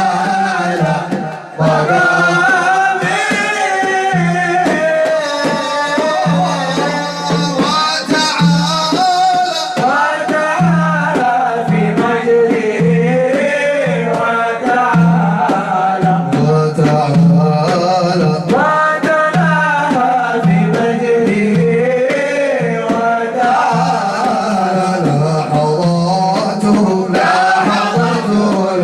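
A male voice sings an Arabic nasheed, an Islamic devotional song, in a winding, ornamented melody over a steady low pulsing rhythm.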